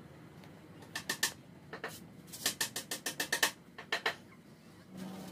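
A run of quick, sharp clicks in small clusters, the busiest cluster about eight clicks in a second, followed near the end by a steady low hum.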